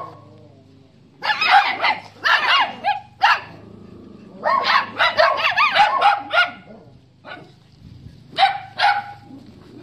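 Dogs barking and yapping in quick, high-pitched barks, in three bouts: a long run about a second in, another in the middle, and a short pair near the end.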